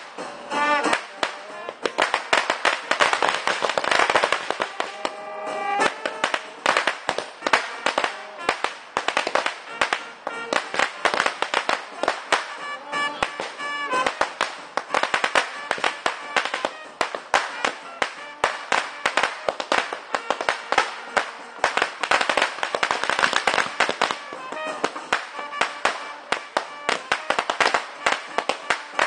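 A long string of firecrackers going off in rapid, continuous bangs and crackles for the whole stretch, with music playing underneath.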